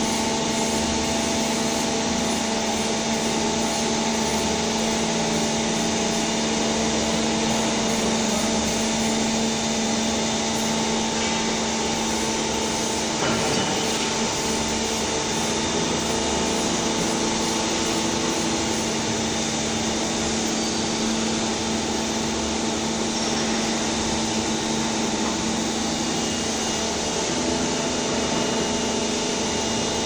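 Machinery in a PVD coating plant running with a steady drone: a constant hum with several steady tones over an even hiss.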